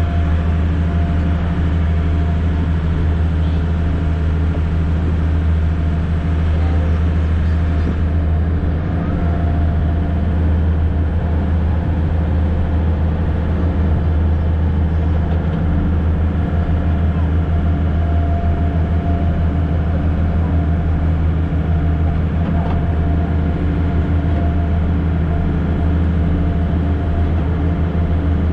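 A river water bus's engine runs steadily with a deep, unbroken drone, heard from the outer deck. Water rushes along the hull beneath it.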